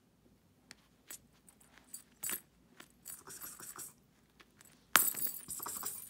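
Small metal bell on a feather wand cat toy jingling in short, irregular tinkles as a kitten paws and bites at it, with the loudest jangle about five seconds in as the kitten carries the toy off.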